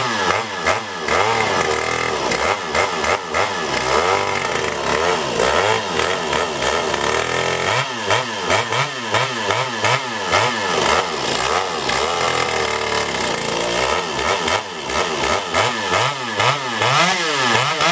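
Two-stroke chainsaw fitted with a big-bore cylinder, running and being revved up and down over and over, its engine pitch rising and falling, with quicker throttle blips in the second half.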